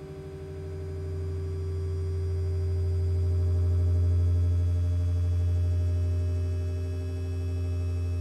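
Low synthesizer drone with a few steady higher tones held above it, swelling in loudness over the first few seconds and then holding.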